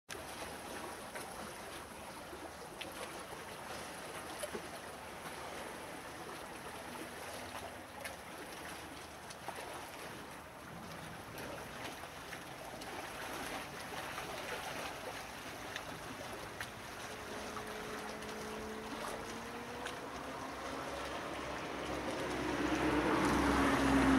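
Lake water lapping with a light outdoor hiss and a few faint clicks. Late on, an engine hum with slowly gliding pitch comes in and grows louder toward the end.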